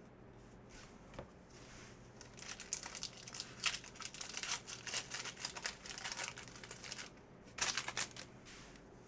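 Foil wrapper of a baseball card pack being torn open and crinkled: a run of crackling from about two seconds in to about seven seconds, then a short burst near the end.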